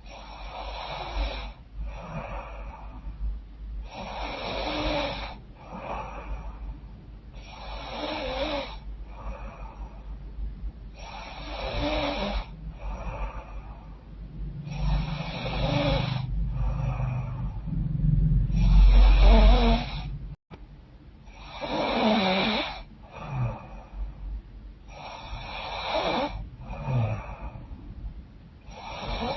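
A woman snoring through a congested, runny nose, with a snore on each breath about every three and a half seconds. The snores swell to their loudest, with a deep rumble, about two-thirds of the way through, then break off for an instant.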